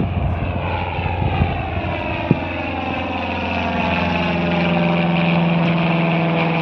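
Propeller aircraft flying past close by, its engine drone getting louder and falling in pitch as it passes. One sharp knock about two seconds in.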